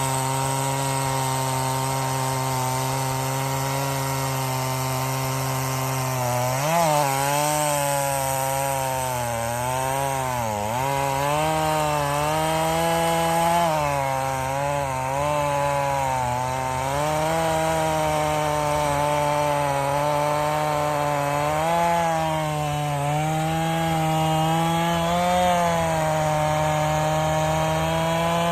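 Chainsaw running continuously while cutting through a log. Its engine pitch is steady at first, then dips and recovers repeatedly as the chain bogs down in the wood, most sharply about seven and ten seconds in.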